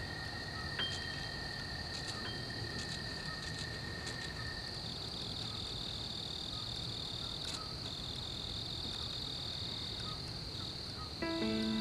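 Steady high chirring of crickets. A few soft chime notes ring in the first seconds, and a held tone stops about five seconds in. Sustained musical tones enter near the end.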